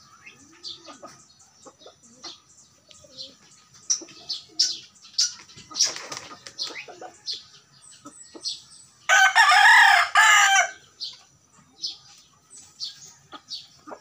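A jungle fowl rooster crows once, loud and about a second and a half long, beginning about nine seconds in. Short high chirps come and go throughout.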